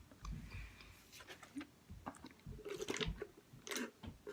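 Close-miked chewing of someone eating: quiet, irregular mouth clicks and smacks, a little louder about three seconds in.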